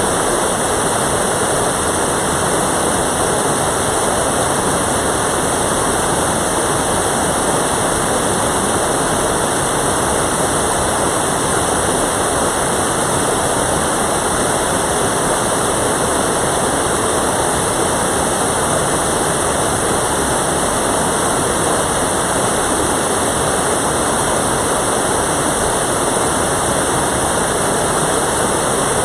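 Mountain valley stream's water rushing, a loud, steady, unbroken sound.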